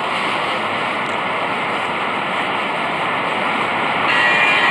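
Steady rushing street noise on a phone microphone, with a faint high whine joining about four seconds in.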